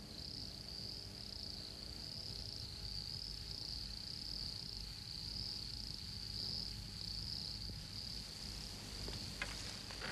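Steady high-pitched chorus of insects, with a couple of faint clicks near the end.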